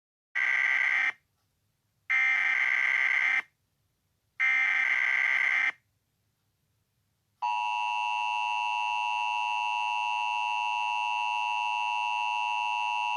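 Emergency Alert System SAME header: three short bursts of buzzy data tones, about a second apart. About seven seconds in comes the steady two-tone EAS attention signal, which holds on.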